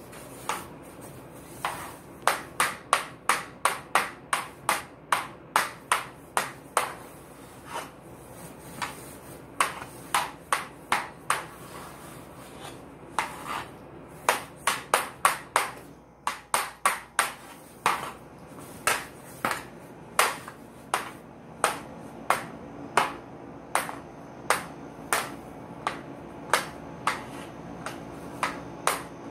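Hockey stick blade tapping a small ball back and forth on a hard floor during stickhandling: a run of sharp clacks, about two to three a second, with a few short pauses.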